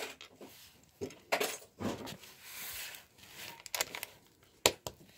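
Small plastic Lego pieces clicking and clacking as fingers handle them and press them onto a plate: a string of separate sharp clicks.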